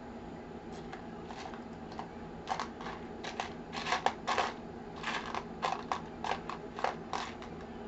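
Irregular clicks, taps and rattles of hard computer parts being handled during a PC build, coming in quick clusters for several seconds, loudest around the middle, over a steady low hum.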